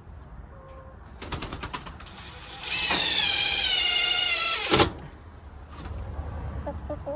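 Cordless drill running for about two seconds, its whine sinking slightly as it drives in a fastener, then cutting off sharply. A quick run of clicks comes about a second before it.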